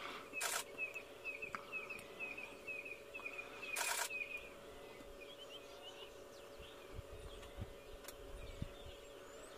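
A DSLR camera's shutter firing short bursts, about half a second in and again about four seconds in. Between them a crowned lapwing calls a fast run of short, sharp notes, about three a second, which stops after about four and a half seconds. A faint steady hum lies underneath.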